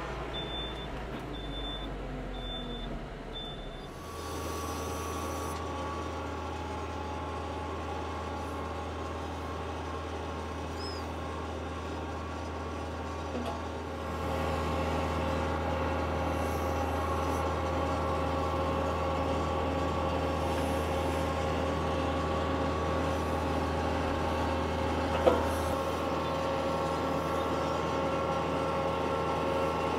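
Yanmar tractor's diesel engine running steadily under backhoe work, with a repeating high electronic beep for the first few seconds. The engine gets louder about 14 seconds in, and a single sharp knock stands out near the end.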